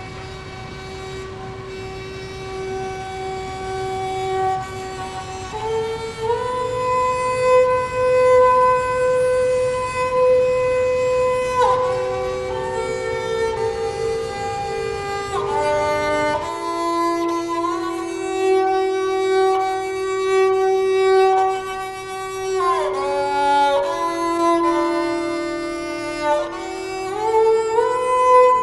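Slow instrumental background music: a melody of long, held notes over sustained chords, growing louder. A low steady rumble underneath stops suddenly a little past halfway.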